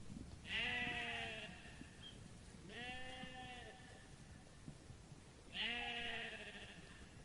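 A sheep bleating three times, each bleat a wavering call about a second long; the first and last are the loudest.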